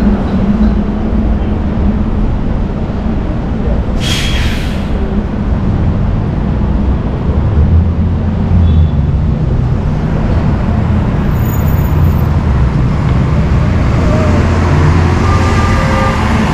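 City street traffic with the steady low rumble of heavy vehicle engines, and a short air-brake hiss about four seconds in.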